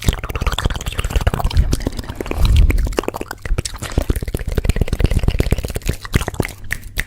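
Close-miked ASMR trigger sounds: a dense run of quick clicks and taps, several a second, with a low rumble about two and a half seconds in.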